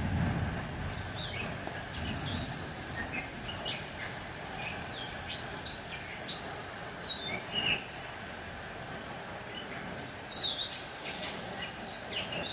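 Small bird chirping: many short, high chirps, mostly falling in pitch, in irregular runs with a lull a little past the middle. A low rumble dies away at the start.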